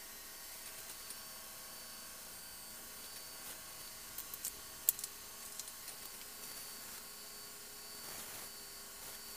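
Electric potter's wheel motor running with a steady low hum and faint whine while clay is worked by hand, with a few short sharp clicks about four to five seconds in.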